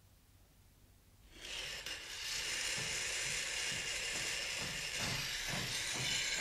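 Radio-play sound effect of machinery at work in a workshop, fading in about a second and a half in: a steady hiss with a regular mechanical clatter under it.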